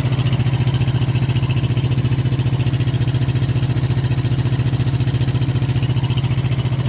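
Kubota two-cylinder diesel engine driving a 7.5 kW generator, running steadily at operating speed with an even, rapid beat; the generator is putting out 230 V with no load on it.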